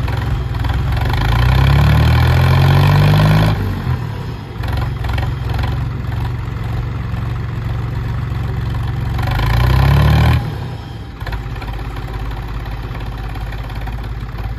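Diesel tractor engines labouring under heavy load in a tug-of-war pull. They rev up twice, rising in pitch and getting louder for a couple of seconds before cutting back sharply: once about three and a half seconds in and again around ten seconds in. Afterwards they settle to a steadier, lower running note.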